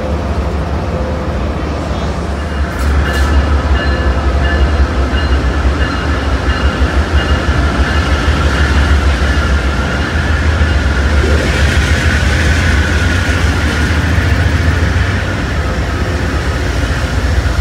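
Amtrak GE P42DC diesel locomotives moving past close by, their V16 diesel engines giving a deep continuous rumble, with a thin steady high whine above it. The sound grows louder about three seconds in, as the locomotives come alongside.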